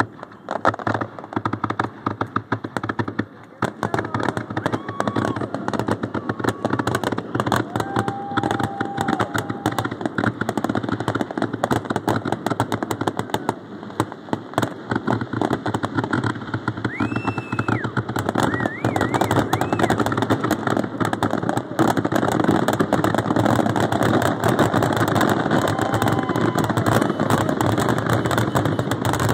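Fireworks finale barrage: aerial shells bursting in rapid, overlapping bangs and crackles, almost without pause, growing denser and louder in the last third.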